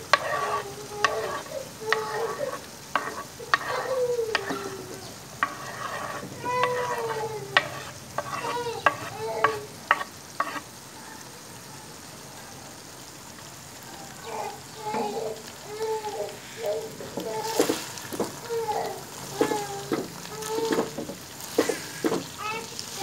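A spoon stirring beef, bitter gourd, onions and tomatoes frying in a pot, with repeated clinks and pitched scrapes against the metal over the sizzle of the oil. Partway through the stirring pauses for a few seconds, leaving only the sizzle, then starts again.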